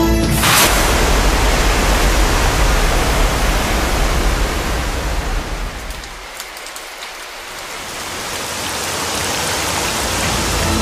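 Sound-effect hiss of spraying water, starting suddenly about half a second in, thinning out in the middle and swelling back up near the end.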